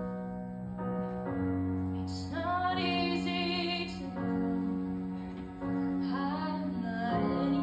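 A girl singing a slow song through a microphone over live band accompaniment. The band holds steady chords throughout, and her voice comes in about two seconds in on long notes with vibrato, then again near the end.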